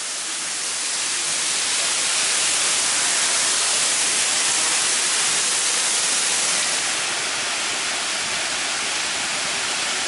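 Man-made waterfall's curtain of water falling and splashing close by: a loud, steady hiss of rushing water that eases slightly after about seven seconds.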